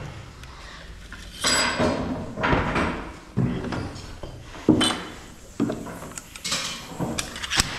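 Wooden furniture parts being handled and fitted together: irregular knocks, bumps and scrapes, with one sharp knock about two-thirds of the way through.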